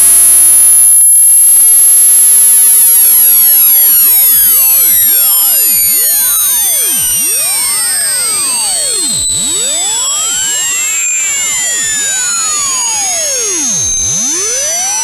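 A piercing, very high-pitched electronic tone, boosted so loud that it is harshly clipped and distorted, its pitch creeping slowly upward.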